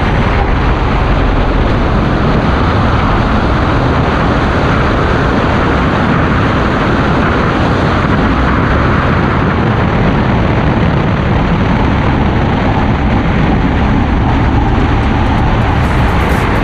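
Steady rush of wind blasting an on-ride camera at speed on the Formula Rossa roller coaster, mixed with the train's rumble along the steel track.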